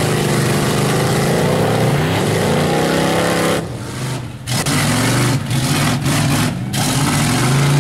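Mud truck's engine revving hard as it plows through a water-filled bog pit, its pitch climbing two to three seconds in. About halfway the sound cuts abruptly to another mud truck's engine, briefly quieter, then running loud again.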